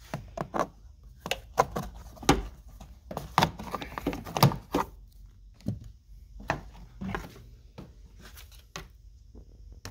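Plastic interior floor trim being pried up by hand, its retaining clips popping loose in a run of irregular clicks and knocks that thin out after about five seconds.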